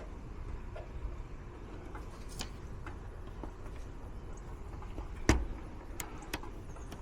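Scattered light clicks and taps of meter probes and small tools being handled at a control board, with one sharper click about five seconds in, over a low steady background hum.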